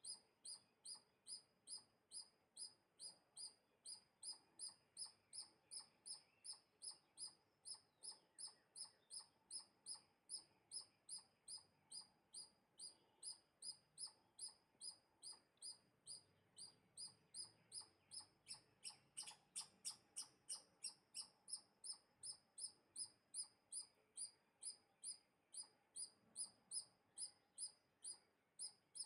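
A small animal's high-pitched chirp, repeated very steadily about two and a half times a second, louder for a couple of seconds about two-thirds of the way through.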